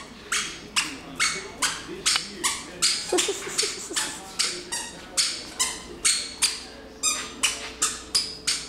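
A toddler's squeaky shoes chirping with every step as he walks, a short high squeak at about two to three a second.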